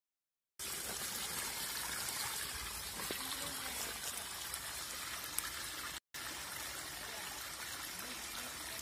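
Shallow water streaming and trickling through a small muddy channel past sacks laid as a dam, a steady even rush that starts after about half a second of silence and drops out for an instant about six seconds in.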